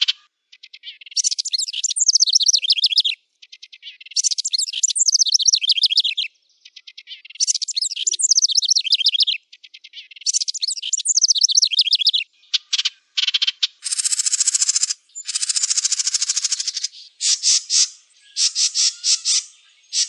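Wren singing loud, high-pitched song phrases of about two seconds each, made of fast trills and falling notes, with short gaps between them; from about two-thirds of the way in the song turns to a run of harsher, buzzy rattles.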